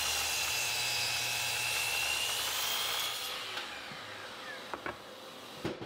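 Miter saw running with a high whine while cutting a 45-degree miter across the end of a 2x4, stopping about three seconds in. A couple of light wooden knocks follow near the end.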